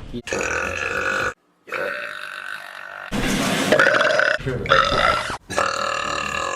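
Women burping: about five separate loud burps, one after another, each about a second long, with abrupt breaks between them.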